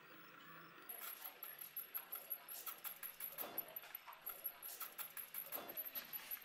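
Small drill bit in a collet-chuck drilling machine boring through a steel blank held in a vise, with a steady motor hum. From about a second in it cuts with rapid, irregular metallic clicking and a steady high whine, which stop at the end.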